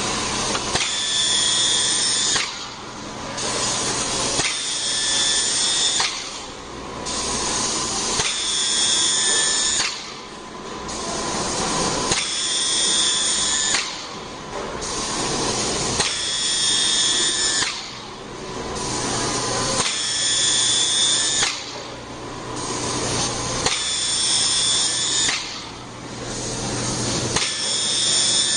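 A power tool at a PU shoe-sole pouring machine, whirring high-pitched in repeated bursts of about a second and a half, one roughly every two seconds, with short dips between them.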